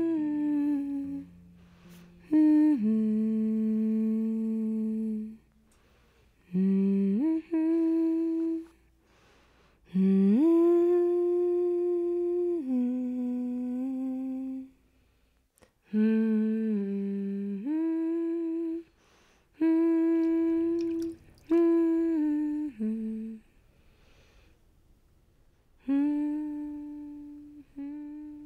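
A woman humming a slow, wordless tune in short phrases of long held notes, with brief pauses between the phrases.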